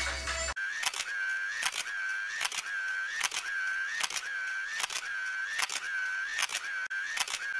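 Camera shutter click sound effect repeating about every 0.8 seconds, each click followed by a short whirring tone, starting after background music cuts off about half a second in.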